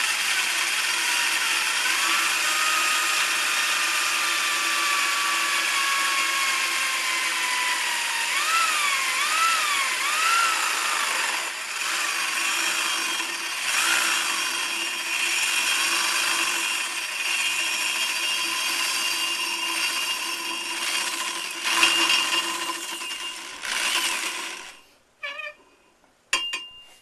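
Electric drill spinning a homemade grinding tool inside a pipe, grinding coarsely crushed eggshells toward powder, with a steady whine and a scraping hiss. The pitch sags and wobbles for a few seconds as the tool loads up. The drill stops near the end, followed by a few knocks.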